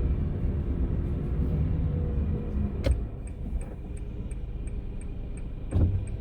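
Honda N-ONE driving, heard from inside the cabin: steady road and engine rumble. A faint rapid ticking starts about three seconds in, and there is a low thump near the end.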